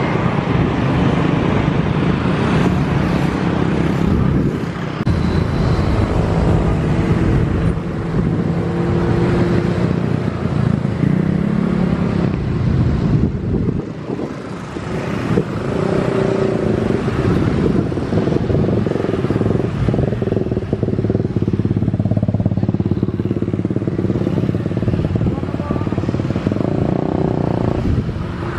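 Steady outdoor engine noise: motor traffic passing on a nearby road, its pitch swelling and fading as vehicles go by, mixed with distant aircraft engine noise.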